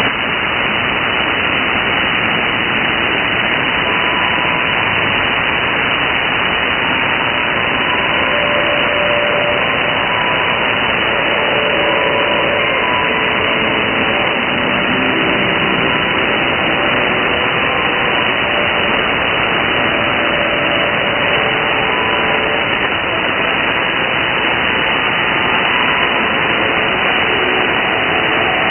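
Shortwave radio audio from a receiver in upper-sideband mode, tuned to the pirate station Pee Wee on 6950 kHz: heavy, steady static hiss, cut off above about 3 kHz. The weak signal shows through only as a few faint, brief tones under the noise.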